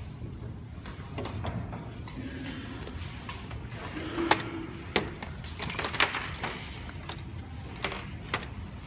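Scattered sharp plastic clicks and knocks as the shell of a C30B robot vacuum is handled and turned over on a workbench, over a low steady room hum.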